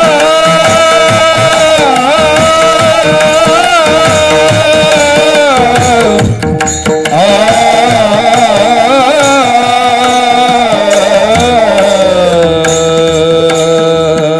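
Kirtan singing: a solo voice sings a long, ornamented devotional melody over tabla and a steady held drone. There is a brief break about six seconds in.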